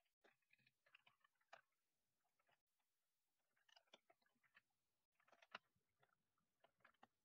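Faint computer keyboard keystrokes and mouse clicks, coming in irregular quick clusters with short pauses between them.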